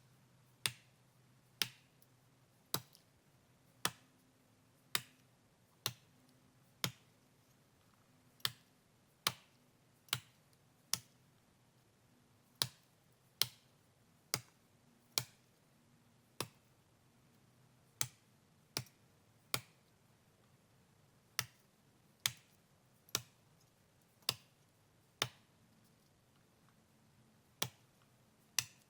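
Felling axe chopping into spruce wood: sharp single blows about once a second, in runs broken by short pauses.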